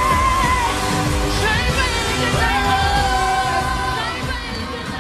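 A singer belting high, long held notes into a microphone over a live pop band, one note at the start and another from about halfway in.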